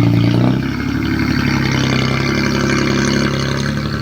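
Diesel engine of a CAT 312B hydraulic excavator running. It eases off about half a second in, then holds a steady hum.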